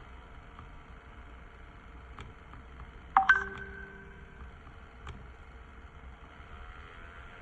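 A short electronic beep about three seconds in: a quick upward sweep that settles into a held tone for about a second. Under it runs a faint steady hum with a few light clicks.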